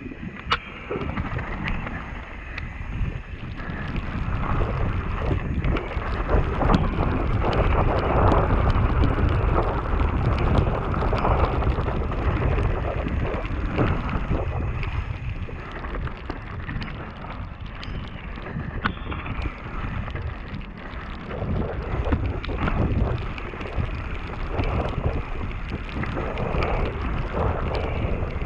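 Mountain bike ridden fast downhill, heard from an onboard action camera: wind buffeting the microphone, tyres rolling over a wet gravel and dirt trail, and the bike knocking and rattling over stones, swelling and easing with the ride.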